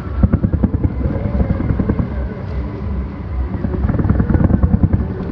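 Firework shells bursting in a rapid, continuous barrage: many low booms and crackles running into one another.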